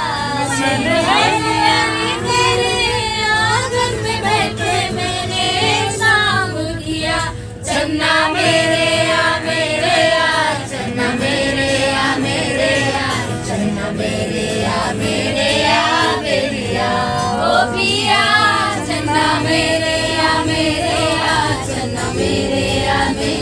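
Background music: a song with singing voices over a steady accompaniment.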